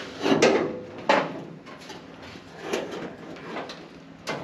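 A few separate knocks and clunks from parts being handled. The loudest come about half a second and a second in, and lighter ones follow near the end.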